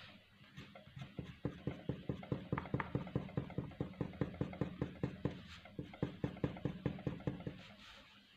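Pencil shading on drawing paper: quick, even strokes, about five a second, starting about a second in and stopping near the end.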